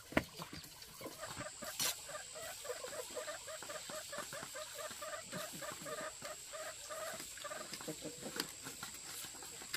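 Chickens clucking in a quick run of short calls, about three or four a second, after a sharp knock at the start. A thin steady high tone runs underneath.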